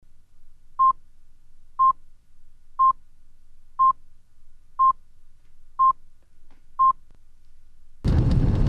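Broadcast countdown-leader beeps: seven short beeps of one pitch, one each second, over a faint hum. About eight seconds in, a loud steady rush of car and road noise starts.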